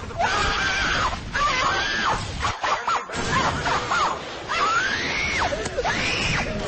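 A voice in loud, drawn-out calls that rise and fall in pitch, over a constant noisy background.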